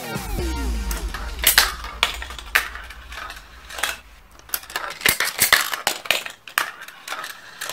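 Steel marbles clacking and rolling through a Gravitrax plastic marble run, with irregular sharp clicks as balls strike the magnetic cannons and track pieces. A falling tone comes in the first second.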